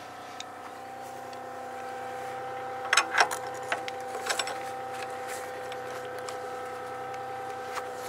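Mini excavator engine idling steadily, with sharp metal clinks about three and four seconds in as a steel bar wrench is fitted to and turned on the quick coupler's central screw, tightening it to lock the bucket on.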